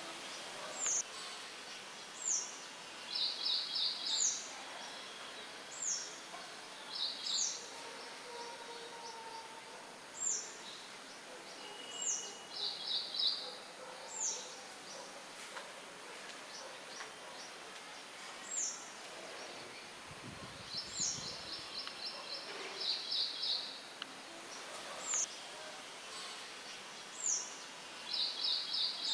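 Songbirds chirping: short high notes that slide downward, every second or two, alternating with brief rapid trills. Underneath is a steady hiss of light wind rustling leaves.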